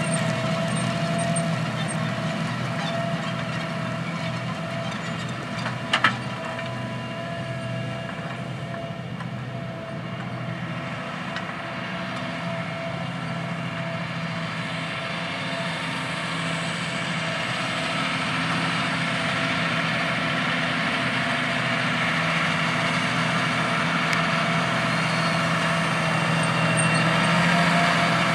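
Diesel engine of large farm machinery running steadily in the field, fading slightly then growing louder toward the end as it comes nearer. One sharp click about six seconds in.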